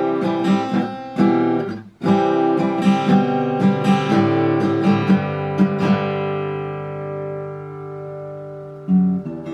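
Acoustic guitar strummed in steady chords, with a brief break about two seconds in. About six seconds in, a chord is left ringing and fades for a few seconds before another strum near the end.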